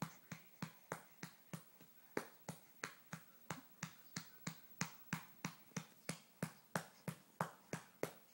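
A hand patting a baby's back in a steady rhythm, about three or four sharp pats a second, to bring up a burp.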